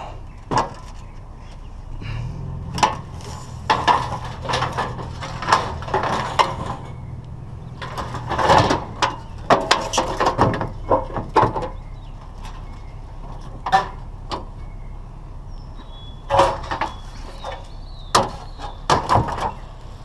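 Scrap metal being handled and loaded: a run of clanks, knocks and bangs in several bursts. A steady low hum runs under the first half.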